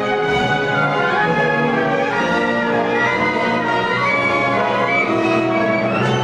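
Symphony orchestra playing a classical work, the bowed string section sustaining notes with the full ensemble at a steady, loud level.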